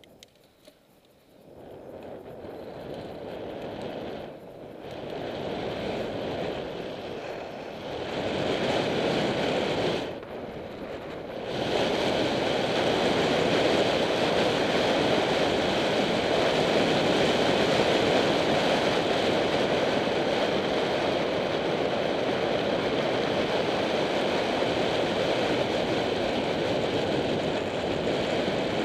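Wind rushing over the microphone of a camera on a moving bicycle, mixed with tyres rolling on tarmac. It starts almost silent, builds in steps over the first dozen seconds with two short drops, then holds steady.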